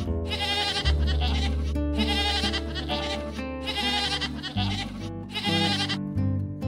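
Goats bleating repeatedly over background music.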